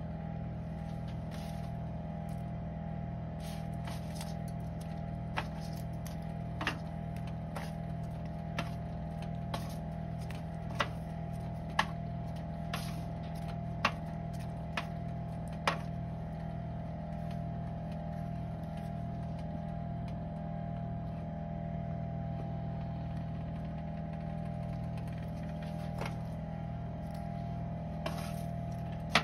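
A steady machine hum with a low pulsing drone, about one and a half pulses a second, and scattered sharp clicks and ticks, most of them in the first half.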